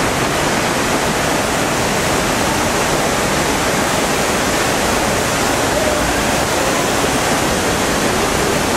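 River water rushing over rapids, a steady, unbroken rush.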